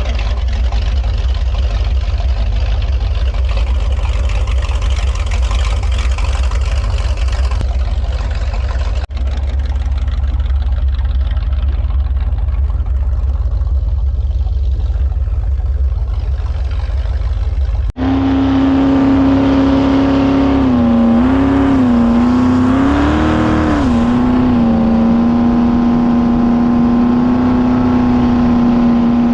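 Jet boat under way: first a steady rushing noise with a deep rumble, interrupted twice by brief cuts. Then a steady engine note that dips and rises a few times a couple of seconds later before holding even.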